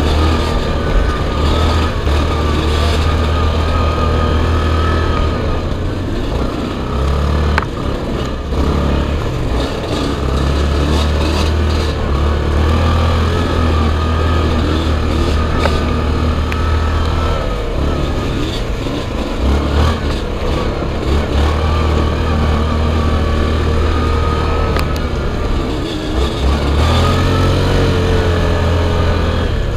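ATV (quad bike) engine running under way at speed, heard from on board, its note wavering slightly with the throttle. A sharp knock about seven and a half seconds in.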